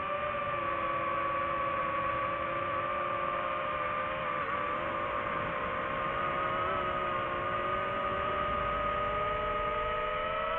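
DJI FPV drone's motors and propellers whining steadily, the pitch drifting slightly as the throttle changes.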